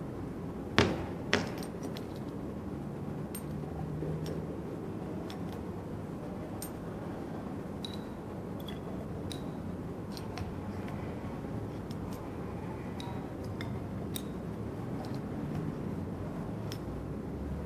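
Laboratory glassware clinking: two sharp glass knocks about a second in, half a second apart, then faint scattered ticks as the glass bottle, dropper and test tube are handled, over a steady room hum.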